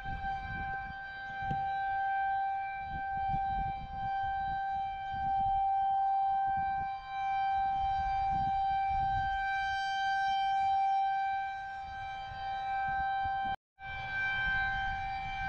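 Outdoor tornado warning siren sounding a really loud, steady tone held at one pitch, the alert for a tornado warning. A gusty low rumble runs underneath, and the sound cuts out for an instant near the end.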